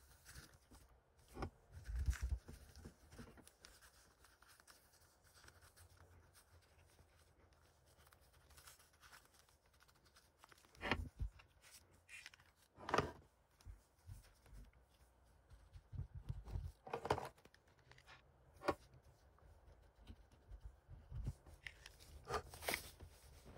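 Quiet handling of alcohol-ink craft supplies: a handful of separate soft knocks, clicks and scrapes as small ink bottles, a felt applicator and a plastic tape dispenser are picked up, dabbed and set down.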